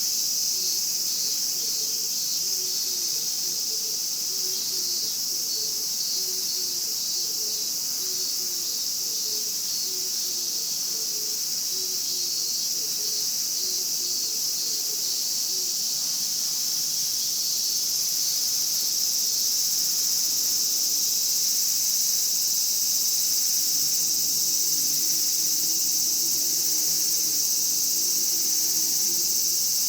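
A chorus of Japanese cicadas buzzing steadily and continuously in a high, dense drone, swelling slightly about two-thirds of the way through.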